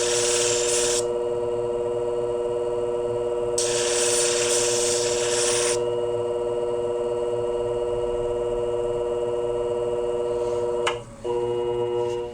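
Shear-sharpening machine running with a steady motor hum, and twice a hissing grind as the shear blade is pressed on the spinning cushion plate with sanding paper. Near the end there is a click and a short break in the hum, which then stops.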